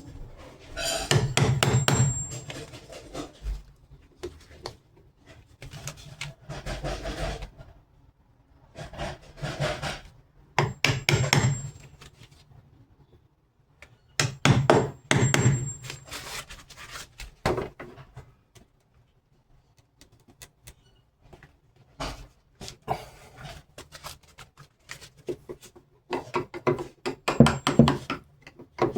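A hammer tapping in short runs of quick blows, with pauses between the runs, while door hardware is fitted.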